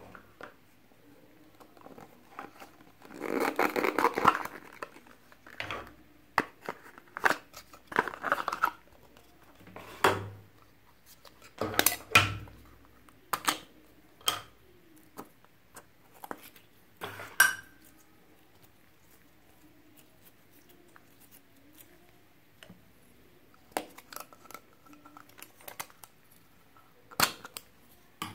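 Small round plastic slime containers handled and opened by hand: scattered sharp clicks and taps of plastic lids and tubs, with a longer crinkling rustle about three seconds in.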